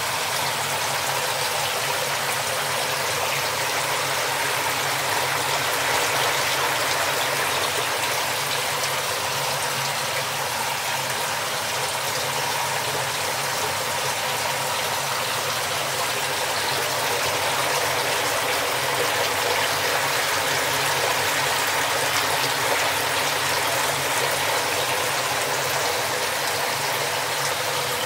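Steady rush of running water in a koi tank.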